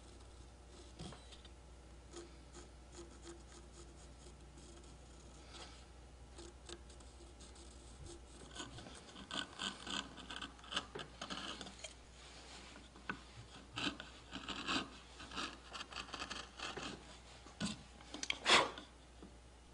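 Hand carving tool cutting wood in a run of short, irregular scraping strokes along the lines of a carved shell, the loudest stroke near the end. For the first eight seconds or so there are only faint scratches.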